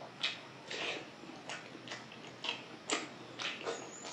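Close-miked wet chewing and lip smacking of a mouthful of rice and dal, with sharp smacks coming irregularly about twice a second.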